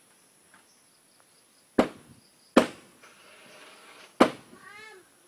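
Three sharp knocks, the second less than a second after the first and the third about a second and a half later, then a short whiny monkey call that rises and falls near the end.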